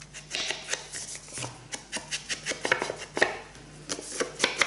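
Edges of scrapbook paper pieces being dabbed with a round foam ink blending tool on a Distress Ink pad, with the paper handled and shifted: a quick, irregular run of short taps and paper rustles, several a second.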